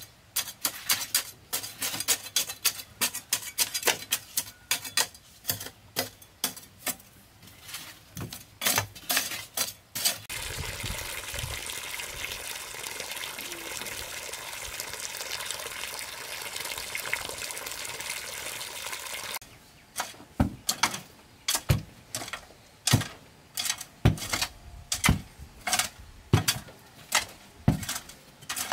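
A hoe chopping and scraping rapidly into stony soil, then water pouring steadily into a ring of sand for mixing mortar for about nine seconds, then regular hoe strokes about every half second working the dirt floor.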